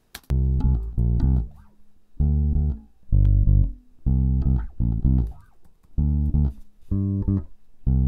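Recorded electric bass guitar line played back solo: short plucked notes in quick phrases, with brief gaps between them.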